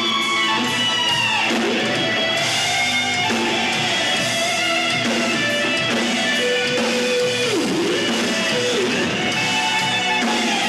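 Rock band playing live, with an electric guitar lead holding sustained notes that twice bend sharply down in pitch.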